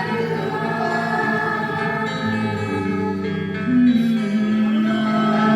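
Live gospel worship music: a held sung note with sustained instrumental accompaniment, slow and steady, the voice gliding to a new note about four seconds in.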